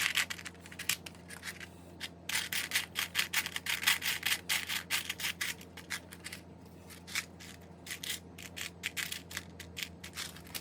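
Loose imitation Lego plastic bricks clicking and rattling against each other as hands rummage through the pile of pieces, in quick irregular clatters with a couple of brief pauses.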